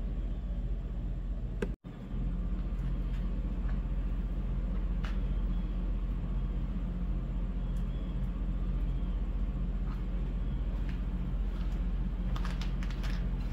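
A steady low droning hum, unbroken apart from a brief dropout about two seconds in, with a few faint short chirps or ticks over it near the end.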